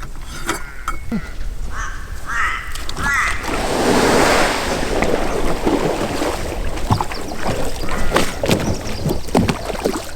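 Scattered metallic clicks and knocks of a propeller being fitted onto the outboard's shaft, over water sloshing and lapping around the dinghy. About three seconds in a rush of splashing water swells up for a couple of seconds and is the loudest sound.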